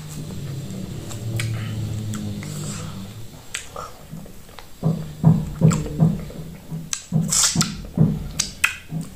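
A woman hums a long, steady "mmm" while eating, then sucks slimy soup off her fingers: wet slurps and lip smacks with short hummed grunts, about two or three a second, from about five seconds in.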